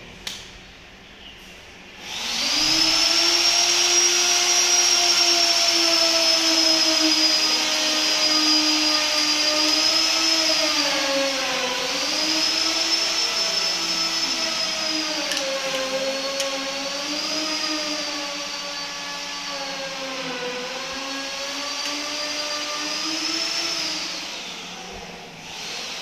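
An electric motor running with a rushing-air hiss, starting about two seconds in. It holds a steady hum whose pitch sags and recovers a few times, then winds down near the end.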